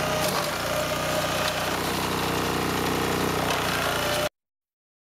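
Two-wheel walking tractor with a front flail mower, its engine running steadily as it mows rough undergrowth. The sound cuts off suddenly near the end.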